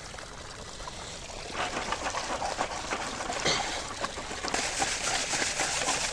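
Water pouring and trickling through a portable gold sluice as gravel is dumped in, with many small stones clicking. It gets louder about a second and a half in, and louder again past the middle.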